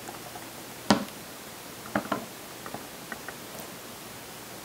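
A few light metallic clicks of a wire whisk against a stainless steel mixing bowl: one sharp knock about a second in, two softer ones around two seconds, then a few faint ticks, over a faint steady hum.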